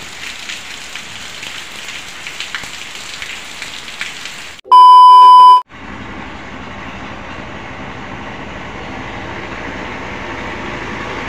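Steady rain falling and pattering for about four and a half seconds. Then a loud electronic beep, one steady high tone about a second long, cuts off suddenly. After it a pickup truck's engine runs as the truck rolls slowly closer, growing gradually louder.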